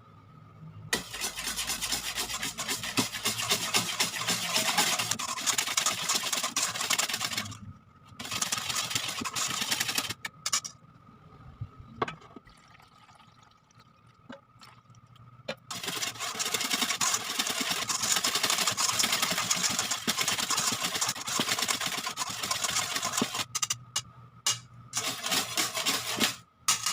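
Electric mixer whipping cream in a bowl. It runs in long stretches, stops briefly about eight seconds in, falls quiet from about ten to sixteen seconds, then runs again until near the end.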